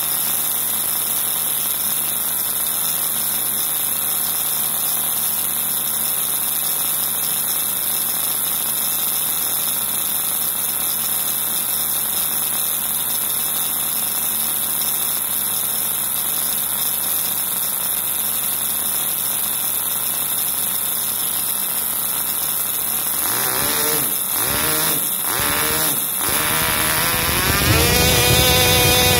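Small Cox glow engine turning a propeller, idling low at about 4,500 RPM with a steady high buzz, its throttle ring and air intake throttle both closed. Near the end it is blipped up and down a few times, then revs up with its pitch rising toward full throttle.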